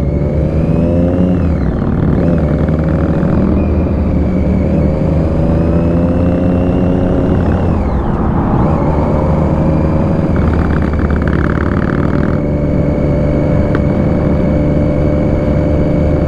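Motorcycle engine, a Triumph Daytona 675 three-cylinder, running on the road under way with wind rush. Its pitch climbs and drops back a few times as it pulls through the gears, then holds steady in the last few seconds.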